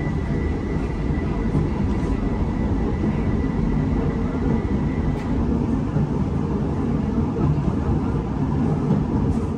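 Light-rail tram running along its track, heard from inside the passenger cabin: a steady rumble of wheels and running gear. A thin, high steady tone over the rumble stops about halfway through.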